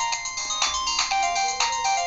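Modottel WTE-300 mobile phone playing a 16-voice polyphonic MIDI ringtone: a bright synthesized melody over evenly spaced beats, about three a second.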